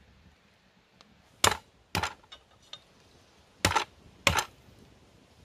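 Four sharp chopping strikes in two pairs, each pair about half a second apart, with a few faint clicks in between.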